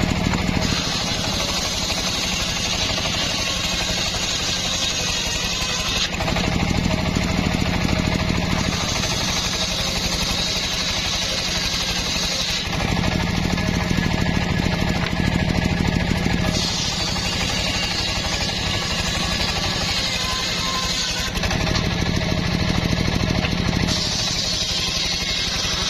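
Homemade circular sawmill ripping old mahogany into rafters: a steady machine hum runs throughout, and the harsh hiss of the blade cutting the wood swells and eases in stretches of several seconds.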